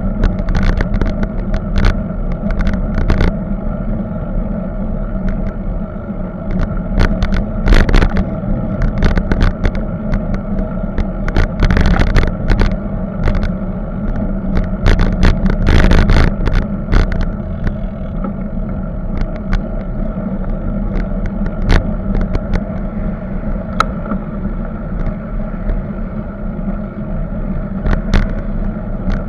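Ride noise from a bicycle-mounted camera rolling along a road: a steady rumble of wind and tyres with frequent sharp rattles and knocks as the bike jolts over the surface. The rattling is busiest about a third of the way in and again around the middle.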